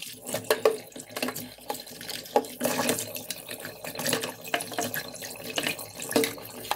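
Kitchen tap running into a stainless steel sink as a robot vacuum's plastic accessories are rinsed under the stream, with irregular splashing throughout.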